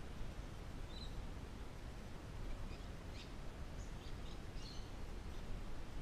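Birds chirping faintly over a steady low outdoor background hiss, with a few short high chirps about a second in and more between two and a half and five seconds in.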